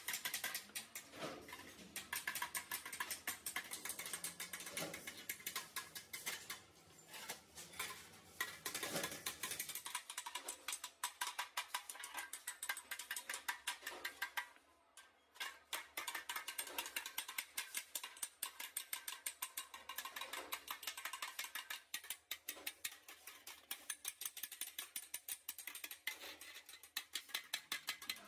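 Rapid, repeated hammer taps on a curved sheet-metal motorcycle mudguard held over a steel stake anvil, shaping the mudguard's edge. The tapping stops for about a second near the middle.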